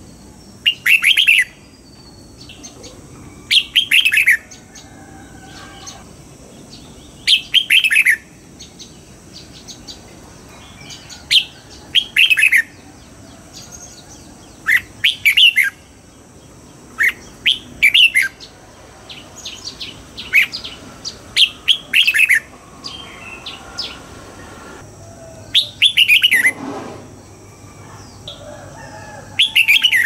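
Red-whiskered bulbul singing: short, loud phrases of quick falling notes, repeated every few seconds.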